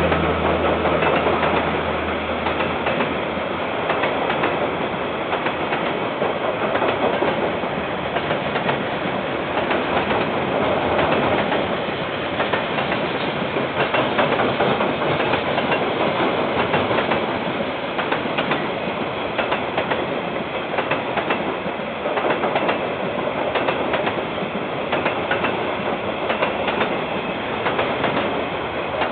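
Freight train's container wagons rolling past, the wheels clattering steadily over the rails with a dense run of clicks and knocks. The diesel locomotive's low engine hum fades out in the first two seconds.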